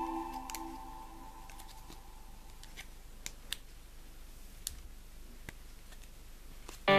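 Small plastic toy parts clicking as they are pressed and snapped together: a handful of faint, sharp clicks spaced irregularly over several seconds. A keyboard chord fades out over the first second, and music starts again at the very end.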